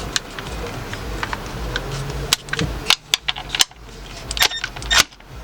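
A cordless power tool runs with a steady hum as it works loose a very tight oil drain plug. The hum gives way to a series of sharp clicks and knocks from about halfway in.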